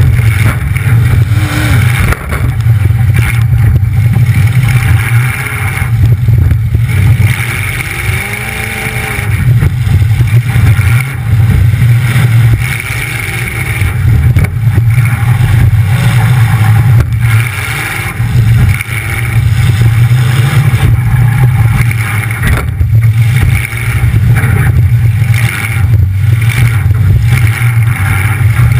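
Demolition derby car's engine running loud through short exhaust stacks that come straight up through the hood, revving up and easing off every few seconds, with a few sharp knocks.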